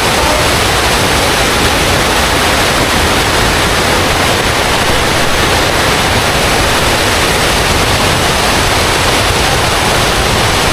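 Waterfall water rushing: a loud, steady, unbroken hiss with no breaks or separate splashes.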